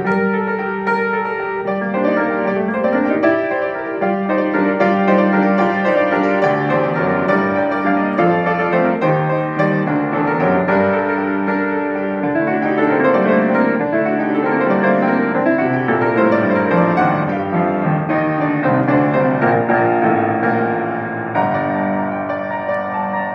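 Grand piano played solo, a continuous flowing piece with quick runs up and down the keyboard.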